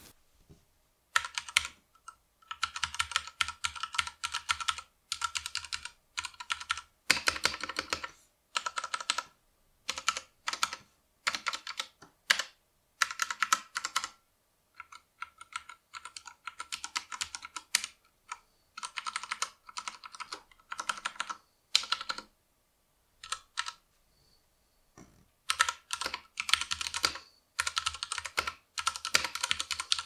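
Typing on a Ducky One 2 SF mechanical keyboard with Cherry MX Brown tactile switches: quick runs of keystrokes in bursts of a second or two, broken by short pauses.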